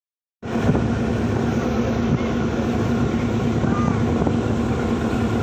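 Passenger river launch's engine running with a steady low drone and a constant hum, with voices in the background.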